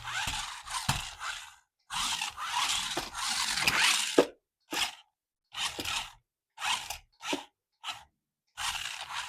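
Packaging being handled during an unboxing, scraping and crunching in short bursts with dead silence between them. The longer stretches come early and a little past a second in; shorter strokes follow near the end.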